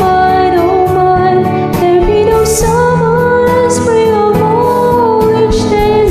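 A song with a female voice singing a held, wavering melody over instrumental accompaniment.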